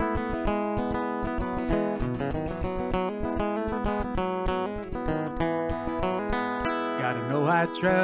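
Steel-string acoustic guitar strummed in a steady rhythm, played solo. A man's singing voice comes in near the end.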